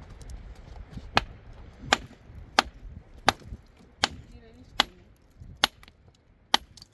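Tool striking wood in a steady rhythm: eight sharp blows, about one every three-quarters of a second.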